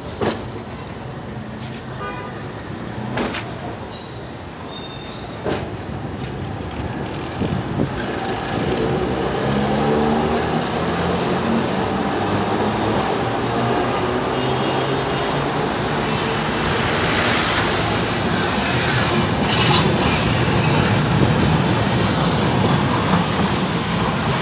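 Raml trams running on the track: a few sharp clicks in the first eight seconds, then the rumble of steel wheels on rails and a low motor hum build up from about eight seconds in and stay loud.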